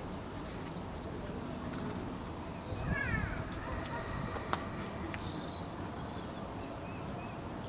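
Small bird's short, very high chirps, a few at first and then about every half second, with a few faint gliding calls about three seconds in. They are typical of a fledgling calling to be fed.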